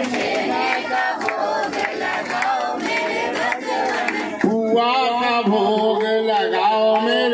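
A crowd's voices with sustained devotional chanting sung over them. The held sung notes blur into overlapping voices early on and grow clear again about four and a half seconds in.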